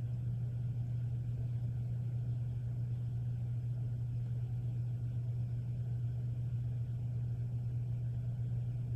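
A steady low hum with a faint hiss, unchanging throughout.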